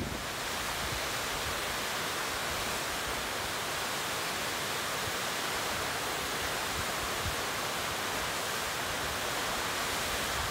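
Partly frozen waterfall pouring over a ledge: a steady, even rush of falling water.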